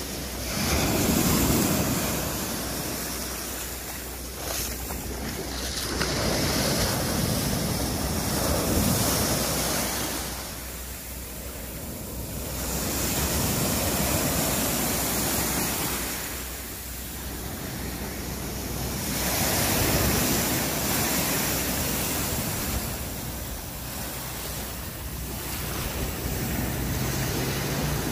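Small waves breaking and washing up over sand and pebbles, the surf swelling and falling back about every six seconds.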